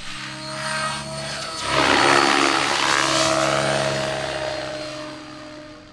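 Helicopter passing by: a steady multi-tone whine with a rushing noise that swells sharply about two seconds in, then fades away as the pitch sinks slightly.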